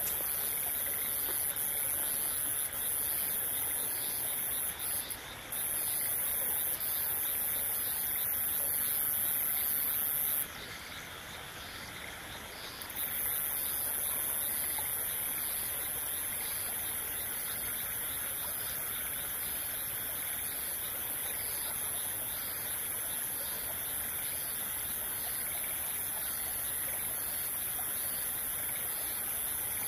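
Night-time outdoor ambience by a stream: an even rush of running water under a very high, steady shrill that breaks off briefly twice. A soft call repeats about once a second.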